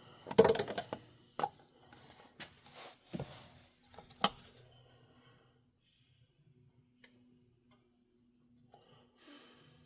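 A run of knocks, clunks and clicks from parts being handled during an oil top-up, loudest in the first second or so and dying out after about four seconds, leaving a faint steady low hum and a couple of small ticks.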